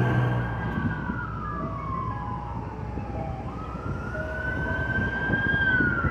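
A wailing emergency-vehicle siren. Its pitch falls slowly, rises again about halfway through, and starts to fall near the end, over the low rumble of street traffic.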